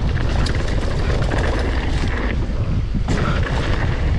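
Mountain bike descending a dirt trail, heard from a camera on the rider: wind buffeting the microphone and a steady low rumble of tyres on dirt, with scattered clicks and rattles from the bike.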